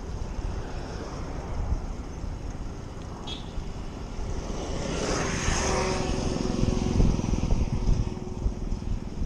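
Gusty wind buffeting the microphone on a moving bicycle. About five seconds in, a motor vehicle passes close by, its engine and tyre noise swelling and then easing off.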